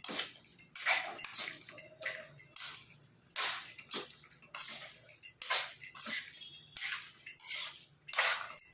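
Raw chicken being mixed with curd, spices and ginger-garlic paste in a bowl: a run of wet mixing strokes, about one or two a second.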